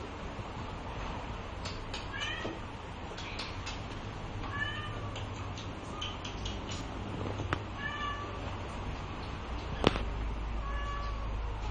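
Bengal kitten mewing: four short, high, thin meows a few seconds apart, with scattered light clicks and one sharper knock about ten seconds in.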